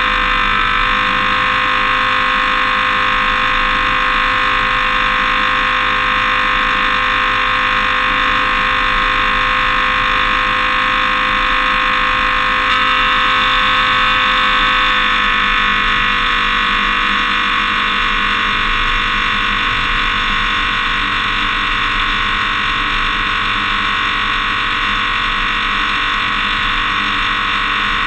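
Toyota Tundra pickup driving at a steady pace: a constant loud drone of engine, tyre and wind noise that gets a little louder about halfway through.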